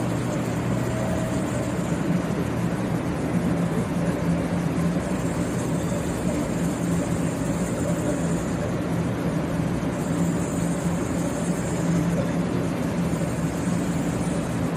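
Steady low hum with an even hiss from a 500-series Shinkansen standing at the platform, its onboard equipment running while it waits.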